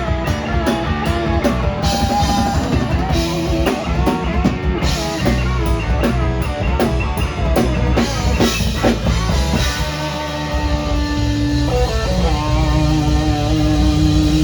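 Rock band playing, with guitar over a drum kit. Near the end a single note is held steadily over the drums.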